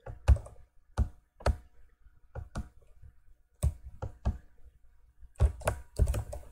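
Computer keyboard keys pressed in irregular single strokes, a few a second, with a quicker run of keystrokes near the end.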